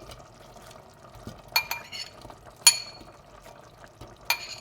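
A kitchen utensil clinking sharply against a cooking pot three times, each strike ringing briefly, over the faint steady sound of curry simmering.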